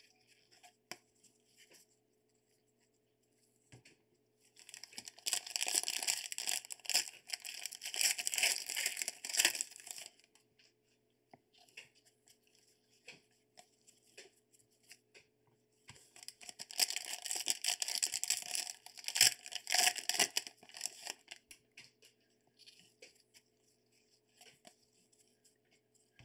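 Trading-card packaging being torn open and crinkled by hand, in two stretches of about five seconds each, with light handling of cards in between.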